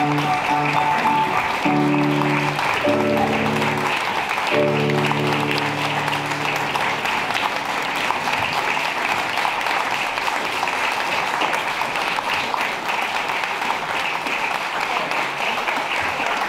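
Audience applauding, with a few held instrumental chords playing over the clapping; the music stops about seven seconds in and the applause goes on.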